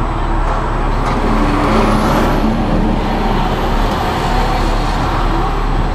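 A heavy concrete mixer truck drives past close alongside in slow traffic, its diesel engine and tyre noise swelling about a second in, over a steady low engine hum.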